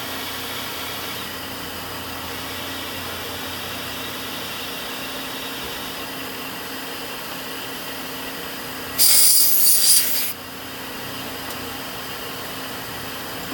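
Arm-mounted drilling machine running steadily with a high whine as its bit drills into a metal air-motor housing. About nine seconds in, a loud hiss lasts just over a second.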